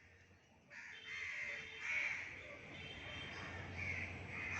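Crows cawing repeatedly, starting about a second in.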